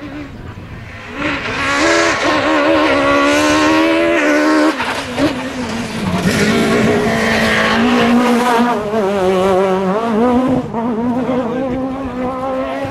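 Peugeot 306 Maxi Kit Car's four-cylinder rally engine under hard acceleration. It climbs steadily in pitch from about a second in, drops sharply about halfway through, then pulls hard again with a wavering pitch, dipping once more near the end.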